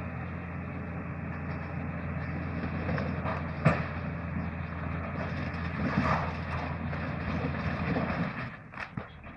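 Bulldozer's diesel engine working under load with a steady low drone, a sharp crack about three and a half seconds in; the engine noise drops away near the end.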